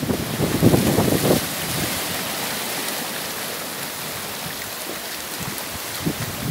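Surf washing in foaming white water over and around shoreline rocks, a steady hiss of moving water. In the first second and a half, wind buffets the microphone in low gusts.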